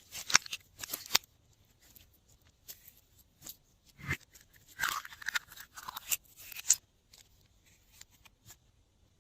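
Glossy slime being handled and mixed by hand, giving bursts of sharp sticky clicks and pops: one cluster at the start and a longer one from about four seconds in, with a quiet gap between.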